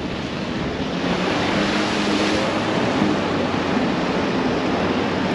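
Off-road vehicle engine running under load while driving through slushy mud and floodwater, with a steady rush of churned water and mud.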